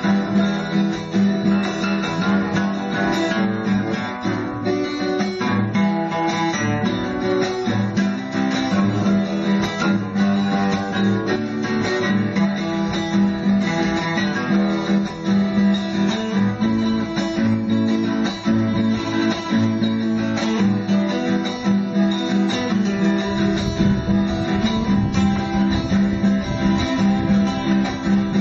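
Soundtrack music: plucked and strummed acoustic guitar playing steadily.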